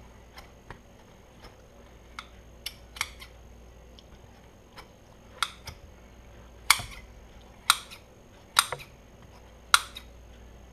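Scissors snipping through a soft foam squishy toy: soft scattered clicks at first, then four sharp snips about a second apart in the second half.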